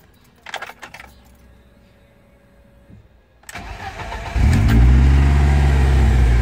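A few clicks from the ignition key, then the BMW E30's turbocharged M42 four-cylinder cranks briefly and catches about four seconds in. It flares up in revs and settles into a loud, steady idle. This is a cold start, through an exhaust that has just been fitted with a twister resonator and is much quieter.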